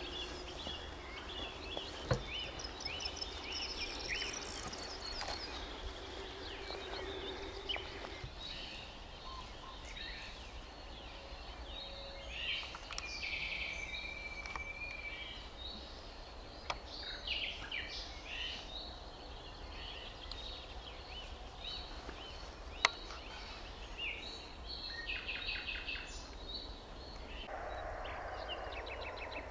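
Wild birds singing, many short chirps, trills and whistles from several birds at once, with a few sharp clicks. Near the end the song gives way to a steadier chirring.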